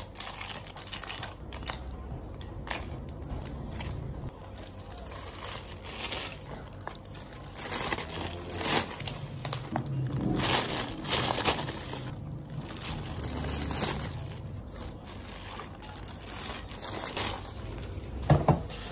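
Thin plastic carry bags crinkling and rustling as iced drinks in plastic cups are packed into them, with small knocks of the cups and a sharper knock near the end.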